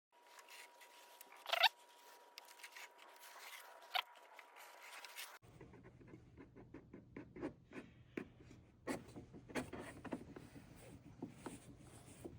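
Faint handling of a small taped-up wooden tray being set on a flat surface and checked for fit: light knocks and many small irregular clicks, thickest in the second half. The first five seconds carry only a faint steady tone and two sharp clicks.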